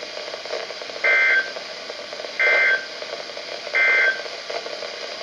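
Three short bursts of the EAS SAME end-of-message data code from a NOAA Weather Radio broadcast, each about half a second long and about 1.4 seconds apart, over a steady background hiss. They signal the end of the severe thunderstorm warning.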